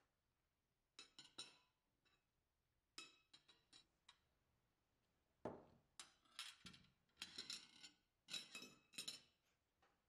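A metal fork clinking and tapping against a ceramic plate in several short bunches of sharp clinks, as food is picked up and the fork is set down.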